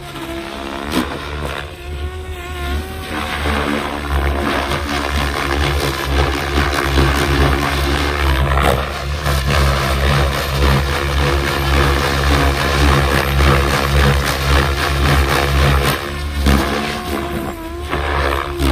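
SAB Goblin 700 electric RC helicopter flying 3D aerobatics: the main rotor chops and whooshes over the whine of its electric motor and gear drive. The whine rises and falls in pitch in the first few seconds, then runs loud and steady.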